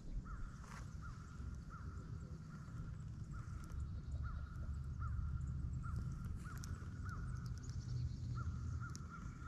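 Baitcasting reel being cranked on a lure retrieve: a faint gear whir that swells briefly with each turn of the handle, about two turns a second, over low wind rumble on the microphone.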